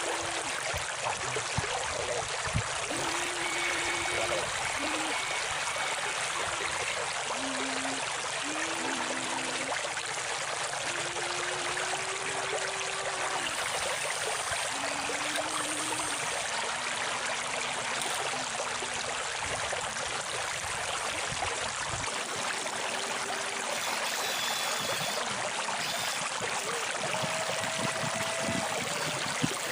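Steady rush of flowing river water. Over it, short low electric whines start and stop every second or two, the motors of RC excavators working in the water.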